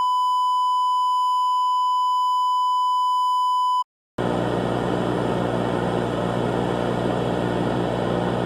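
A glitching TV Emergency Alert System broadcast. A single steady, high-pitched electronic tone sounds for about four seconds and cuts off abruptly. After a brief gap, a loud, steady buzzing noise with a hum underneath takes over.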